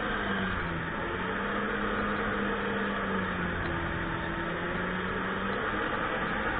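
Sea-Doo personal watercraft engine running under way with rushing water. Its engine tone holds steady, then eases off near the end as the craft slows.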